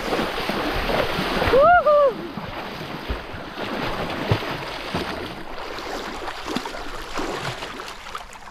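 Feet splashing hard through shallow lake water as a man runs in. A short yell rises and falls about two seconds in as he plunges forward. After that come quieter sloshing and small splashes as he swims, fading towards the end.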